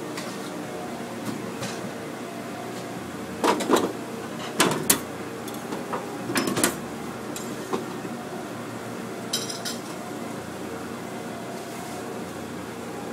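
Kitchen utensils clattering against a stainless steel work table: several sharp metallic clacks in three short clusters, the loudest a few seconds in, over a steady kitchen ventilation hum.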